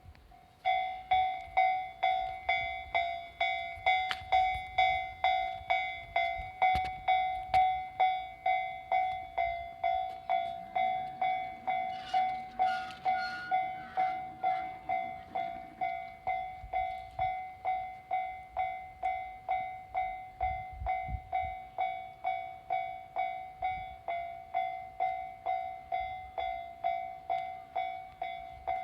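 Japanese level crossing warning bell starts ringing under a second in, a fast, steady ding-ding that signals an approaching train. A low hum rises and fades briefly around the middle.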